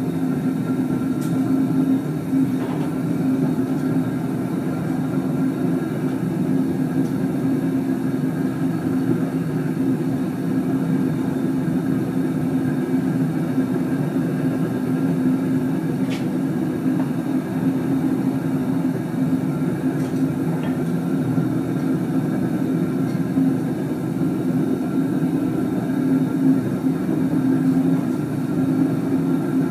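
Gas burner firing into a homemade furnace made from an old gas cylinder, running steadily with a low, even rumble as the flames blow out of the top; the furnace is being heated to melt copper. A few faint clicks sound over it.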